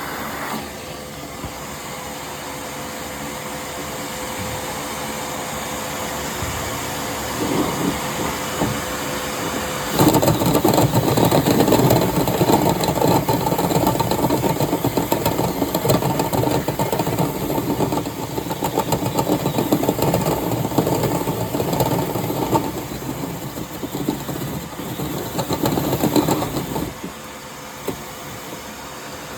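Dryer-vent cleaning gear running: a steady motor sound with a faint constant tone for the first ten seconds, then a much louder, rough noise from about ten seconds in until near the end, when it drops back down.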